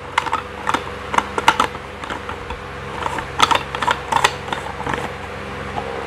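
Plastic parts of a manual juicer clicking and clattering as they are twisted and fitted together, in irregular clusters of light clicks.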